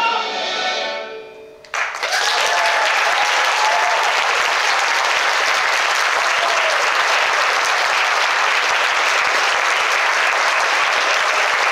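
The orchestra's final chord fades away over the first second or two, then the audience breaks into loud, steady applause.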